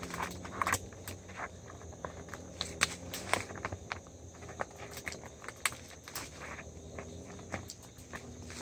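Irregular clicks, scrapes and rustles as old barbed wire is pulled and handled through dry brush and leaf litter, over a steady high insect drone.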